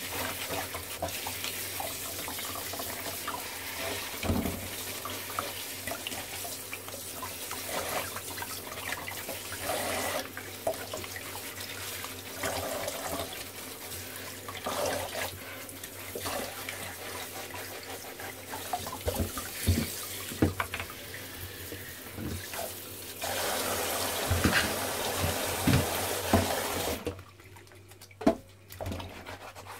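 Tap water running into a bowl in a kitchen sink while brown crab pieces are rinsed and scrubbed with a brush, with occasional knocks of shell against the bowl. The running water stops near the end.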